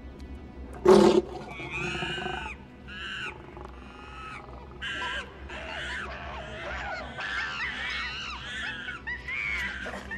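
Caged chimpanzees screeching and hooting, many high calls overlapping and rising and falling in pitch, after a sudden loud cry about a second in.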